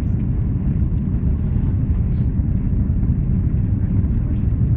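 Steady low rumble of a jet airliner's cabin in flight: engine and airflow noise heard at a window seat.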